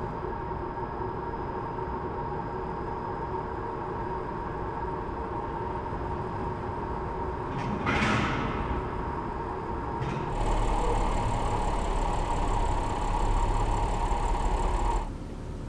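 Audi car driving slowly through a concrete parking garage, a steady low engine hum. About eight seconds in there is a short whoosh as it comes close. From about ten seconds in, a louder rumble of driving is heard close to the car, and it cuts off sharply near the end.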